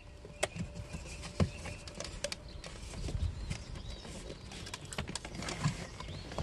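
Plastic interior trim on a BMW F11 being pulled loose by hand: scattered small clicks and taps of plastic.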